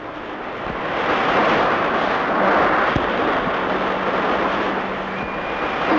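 A steady rushing noise, swelling over the first second, with one sharp click about three seconds in: a film sound effect for a city burning.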